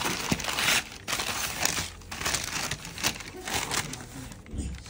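Tissue paper in a shoebox crinkling and rustling in an uneven run of bursts as hands push it aside and lift the sneaker out.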